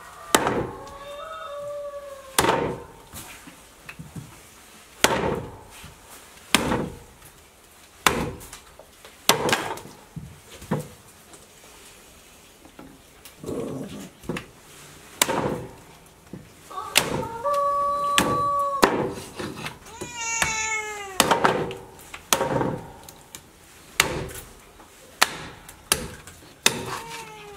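Meat cleaver chopping pork on a thick wooden chopping block, a heavy strike every one to two seconds. An animal calls a few times, once briefly about a second in, then a long held call and a falling call past the middle.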